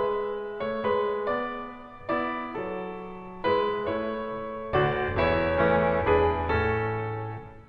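Slow piano music: notes and chords struck every half second or so and left to fade, with low bass notes coming in about two-thirds of the way through.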